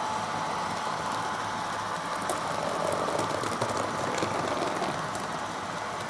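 HO scale model train running on the layout's track: a steady mechanical hum with a few light clicks from the wheels on the rails.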